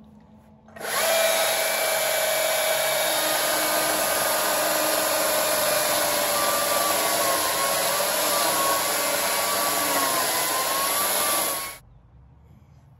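Stihl battery chainsaw running at full speed and cutting through a fallen log. It starts suddenly, its pitch wavers slightly under the load of the cut, and it stops suddenly, with no engine idle before or after.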